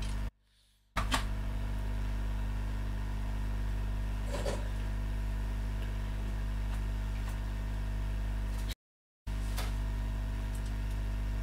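Hot-air rework station blowing steadily over two shorted capacitors to melt their solder and lift them off the logic board: a steady hum with a few faint clicks. The sound cuts out completely twice, briefly.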